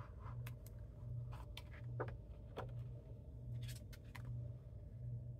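Adhesive tape runner drawn across cardstock, then light scrapes and taps of card pieces being handled and set down. A low hum pulses underneath.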